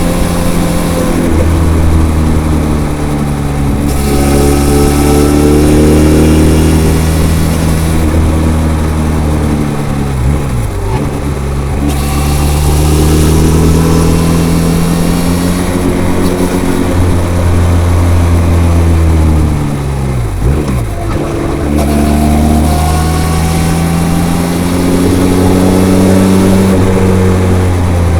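Benelli TRK 502's parallel-twin engine through its stock, unmodified exhaust, pulling through the gears on the move. The pitch rises and falls again and again, dropping sharply twice, about a third and about two thirds of the way through, as the revs come down.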